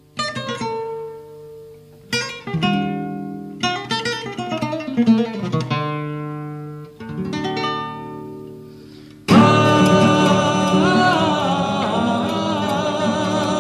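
Sephardic song music: an acoustic guitar picking single notes and chords that ring and fade, then about nine seconds in a fuller, louder passage comes in suddenly with a wavering melody line over the guitar.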